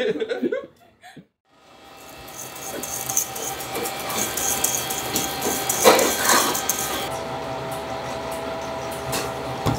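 Laughter trailing off, a short gap, then kitchen clatter builds: utensils scraping and clicking against stainless steel mixing bowls as batter and chocolate are stirred and whisked.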